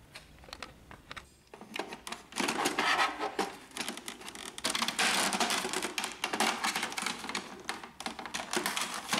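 Plastic cover of an Epson WorkForce printer's automatic document feeder being handled and fitted into place. A few light clicks, then from about two seconds in a dense run of plastic clicking and rattling.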